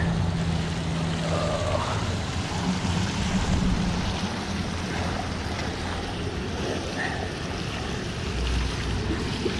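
Water rushing and churning steadily out of a concrete canal spillway. A low steady hum underneath fades out after the first few seconds.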